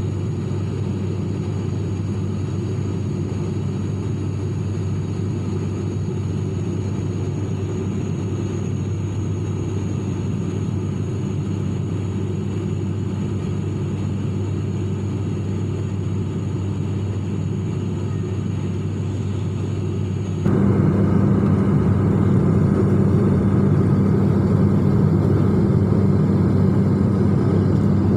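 Steady engine drone heard inside an airliner cabin, with a strong low hum. It jumps suddenly louder about two-thirds of the way through.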